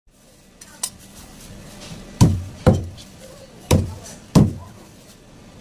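Heavy cleaver chopping through a tuna into a wooden chopping block: four loud, deep chops in two pairs, each with a short ring-out, after a light tap about a second in.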